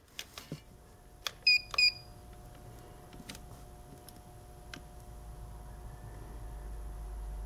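A digital trigger pull gauge beeps twice in quick succession about a second and a half in. Light handling clicks follow, and a low rumble slowly grows louder as the gauge draws the pistol's trigger back.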